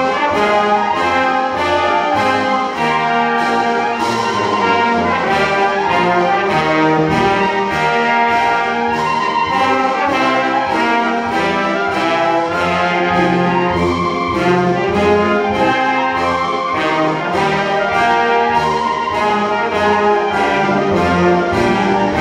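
Concert wind band playing a pasodoble: brass and woodwinds sustaining full chords and melody over a steady, evenly spaced percussion beat.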